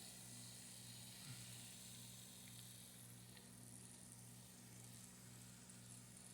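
Faint steady sizzling of pork crackling frying in a pan of oil, with a low steady hum underneath.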